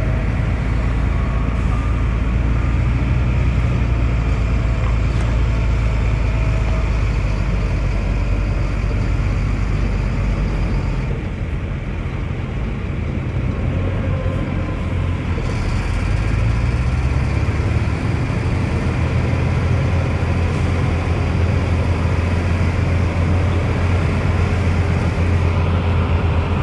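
Bulldozer's diesel engine running as it works, a steady low rumble that eases off briefly a little before halfway through, then picks up again.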